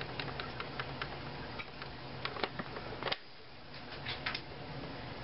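Plastic buttons on a 1987 General Electric clock radio clicking in quick succession, about four or five a second, as the alarm hour is stepped through. A few louder clicks follow around two to three seconds in, and a short cluster of clicks comes near the end.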